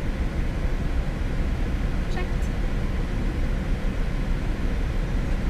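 Steady low rumble of a Boeing 787 flight deck in climb: airflow and engine noise at an even level.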